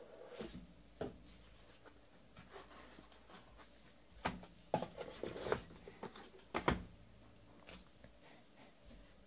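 Handling noises from a cardboard trading-card box and the cards inside it. There are soft knocks and rubbing as the lid comes off, then a cluster of sharp clicks and scrapes from about four to seven seconds in as a stack of cards in plastic holders is lifted out and handled.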